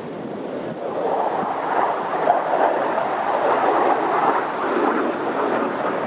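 Jet engine noise of an F-16 in flight at a distance, a steady rushing sound that swells about a second in and then holds.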